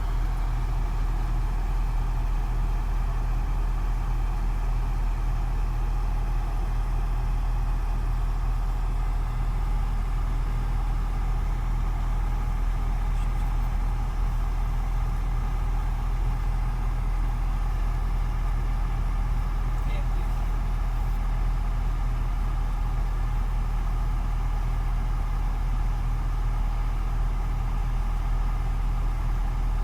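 Truck crane's engine running steadily under way, a constant low drone heard from inside the cab.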